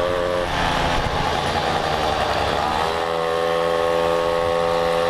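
Mobylette moped's small two-stroke engine running steadily on the road. About half a second in, it turns rougher and higher for roughly two seconds, then settles back to its steady note.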